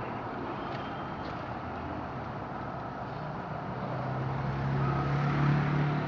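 Steady background traffic noise, with a passing motor vehicle's engine hum that swells about four seconds in and fades near the end.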